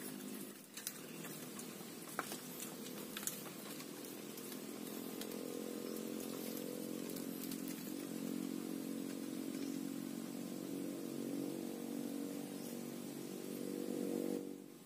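A small engine runs steadily, its pitch wavering slightly; it grows louder near the end and then drops away sharply. A few sharp clicks sound in the first few seconds.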